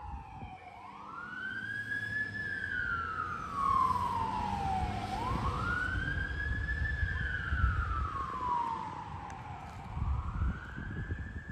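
Fire engine's PA300 electronic siren on a slow wail. The pitch climbs quickly, holds briefly at the top, then slides slowly down, repeating about every four and a half seconds, over a low rumble.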